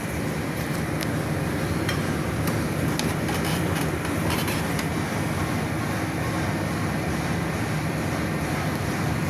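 A loud, steady low rumbling knock that goes on without a break, with a few faint clicks about two to five seconds in.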